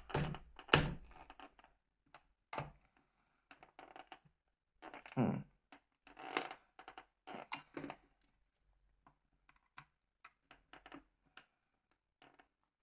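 Irregular clicks, taps and scrapes of hands and a small screwdriver working on an old NEC phone's plastic housing, with a few louder knocks in the first half.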